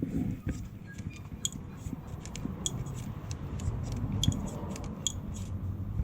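Light metallic clicks and taps, irregular and spread throughout, from hand tools and brake-line fittings being handled, over a steady low rumble.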